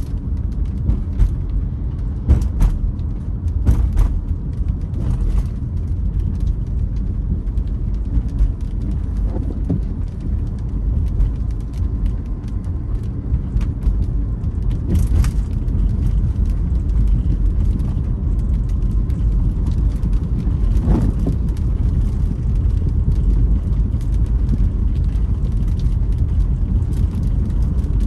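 Car driving on a wet road, heard from inside: a steady low rumble of tyres and engine, with a few short clicks, three close together in the first few seconds and one more about halfway through.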